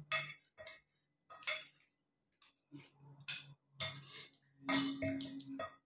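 Metal fork clinking and scraping against a plate in short, irregular taps while eating, with a brief low hum about five seconds in.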